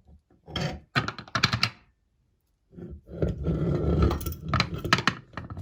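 Meat grinder crunching through hard, frozen crunchy ice cream: dense clicking and crackling with a low rumble, in a short burst and then a longer one starting a little before the middle.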